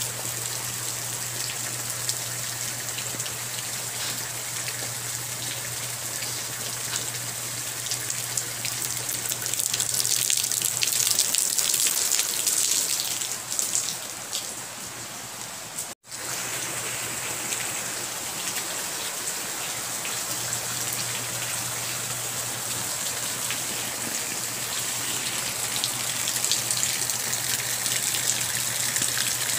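Steady rain falling, a dense hiss with fine pattering of drops. It grows heavier for a few seconds about a third of the way in, and the sound drops out for an instant about halfway through before resuming.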